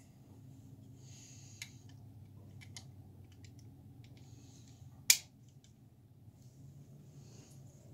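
Andersen S1059 plastic adapter plate snapped onto a new S1053 casement crank operator: one sharp click about five seconds in. Before it come a few lighter clicks and short rustles as the parts are handled.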